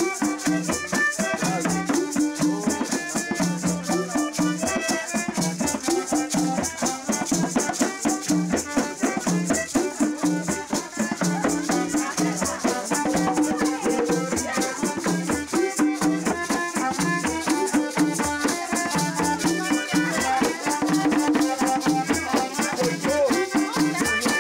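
Live folk music: a small accordion playing a steady melody over hand drums, with a gourd rattle shaken in a constant rhythm.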